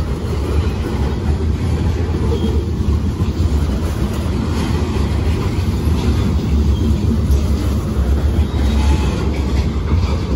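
Freight train of covered hopper cars rolling past close by: a steady, deep rumble of steel wheels on the rails.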